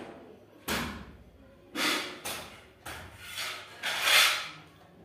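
A sharp thud about a second in, followed by a string of short rough household knocking and handling noises, the loudest near the end.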